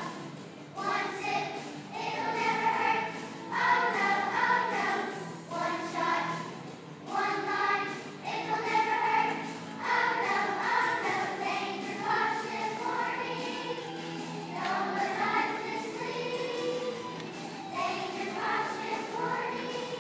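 A children's choir singing a song in phrases of held notes, with musical accompaniment underneath.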